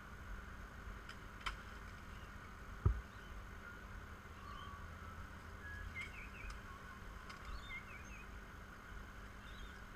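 Faint outdoor background noise with a soft knock about three seconds in and a few faint, short chirps in the second half.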